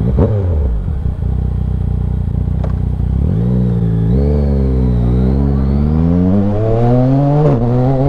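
Yamaha Tracer 900 GT's three-cylinder engine: running low and steady for about three seconds, then the revs swing up and down and climb as the bike pulls away, with a sudden drop near the end as it shifts up, then rising again.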